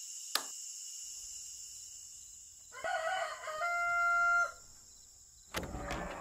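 A rooster crowing once: a rough start about three seconds in, then a long held note that stops suddenly. A steady high whine runs underneath, and a brief scuffing noise comes near the end.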